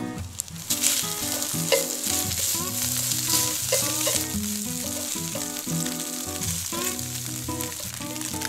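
Thin strips of Spam sizzling in a nonstick frying pan as they brown and render their own fat, with light clicks of wooden chopsticks stirring them.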